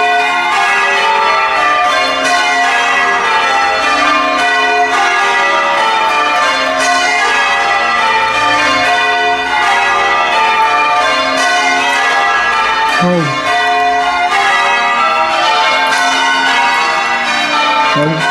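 A peal of church bells being rung in changes (English change ringing), strike after strike in an unbroken stream with the notes overlapping.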